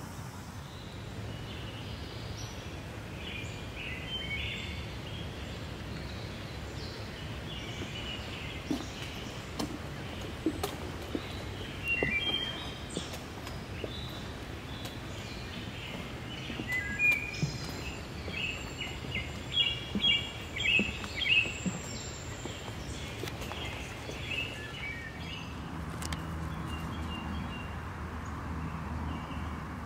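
Woodland ambience: small birds chirping and calling on and off, busiest about halfway through, over a steady low background noise.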